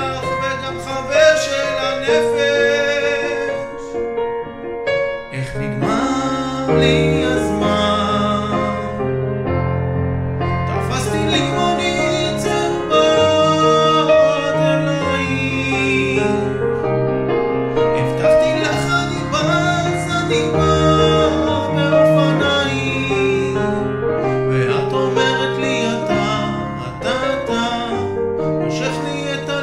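Instrumental passage of a song with piano, carried by a melody over a steady bass line.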